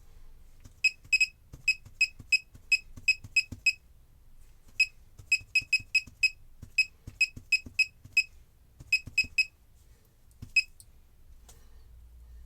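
Laser projection keyboard sounding its electronic key-click beep for each keystroke while someone types. The beeps are short, high and identical, and come in quick irregular runs with brief pauses. They stop about ten and a half seconds in.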